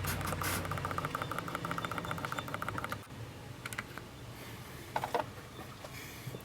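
Rapid, evenly spaced clicking of a ratchet wrench over a low hum for about three seconds, then stopping, followed by a short rustle about five seconds in.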